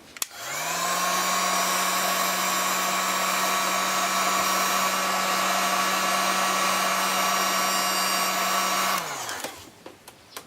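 Electric heat gun blowing hot air to shrink heat-shrink tubing over a crimped wire joint. Its fan motor spins up about half a second in, runs steadily for about eight seconds, then winds down near the end.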